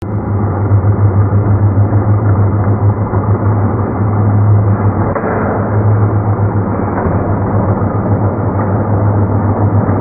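Toy train set's plastic mechanism and motor heard as a low, steady droning rumble with rattling over it, deep and dull as in slowed-down slow-motion playback. It starts abruptly and runs without pause.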